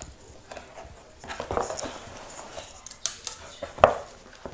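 Cardboard shipping box handled by hand: its flaps rustle and scrape, with a few sharp knocks, the loudest a little before the end.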